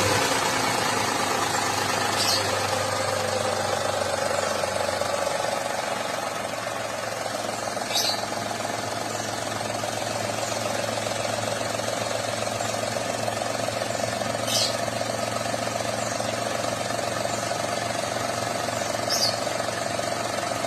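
Car engine idling steadily, easing down from a rev in the first few seconds, with the AC compressor pulley making an odd noise while the AC is switched off. A short, high chirp comes four times, roughly every six seconds.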